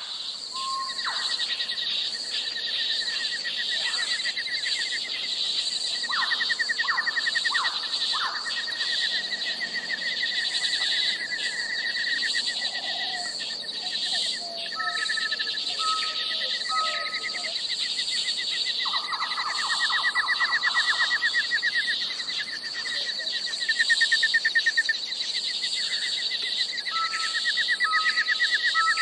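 Forest ambience: a steady high insect drone with fast chirping trills, and a bird calling in short whistled notes, three at a time, twice.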